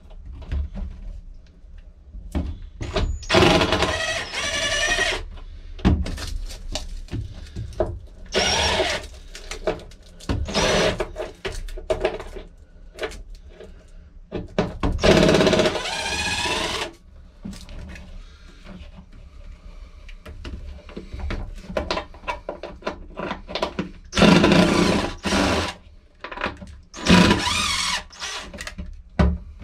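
Cordless DeWalt drill/driver with a #3 Phillips bit, run in about six short bursts of one to two seconds with its whine rising and falling in pitch as the trigger is squeezed, backing out the screws that hold an old corroded 12 V pump. Short clicks and clatter come between the bursts.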